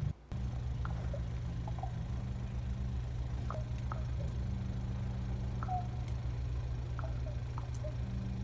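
A steady low mechanical hum, with faint short high chirps scattered over it and a brief dropout just after the start.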